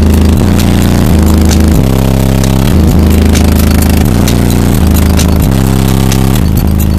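Bass-heavy music playing through a wall of 24 Alpine Type R 10-inch subwoofers run by Rockford Fosgate 2500.1 amplifiers, heard from inside the Chevy's cabin. The deep bass notes change about once a second, and the recording is overloaded.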